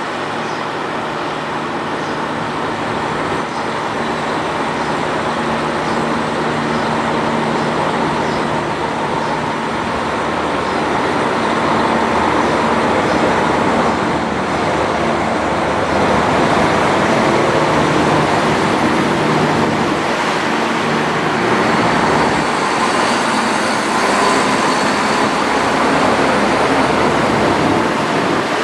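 JR Kyushu KiHa 66/67 series diesel railcars rolling slowly along the platform, their diesel engines running with a steady low hum under the rumble of wheels on rail, growing louder as the cars come past.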